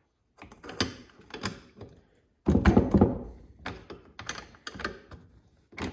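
Metal T-handle spark plug wrench clicking and knocking on a Stihl 026 chainsaw's spark plug as it is seated and turned to loosen the plug, with a louder thump about two and a half seconds in.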